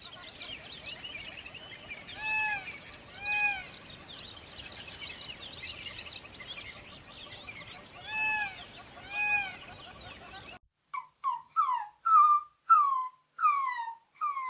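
A chorus of many birds chirping, broken by two pairs of short arched calls. About ten seconds in it cuts abruptly to a run of short, falling cries repeated about twice a second.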